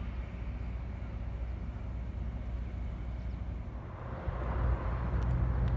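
Highway traffic: a steady low rumble of vehicles, growing louder about four seconds in as tyre noise from a passing vehicle swells.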